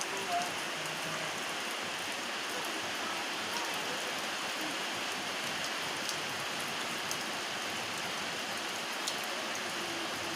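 Rain falling steadily, an even hiss, with a few sharper drop ticks now and then.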